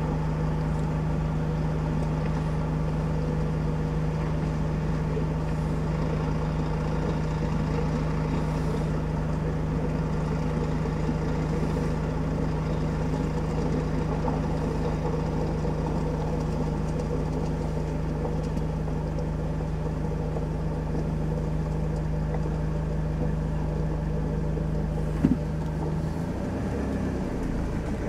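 Diesel engine of a Volvo heavy-haulage tractor unit running steadily at low revs as the truck crawls forward hauling a low-loader with a steam locomotive aboard. A sharp click comes about 25 s in, and the steady engine tone drops away a second later.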